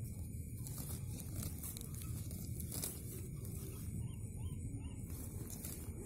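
Nylon bird net rustling and crinkling as it is handled, over a low rumble of handling noise, with one sharp crackle about three seconds in.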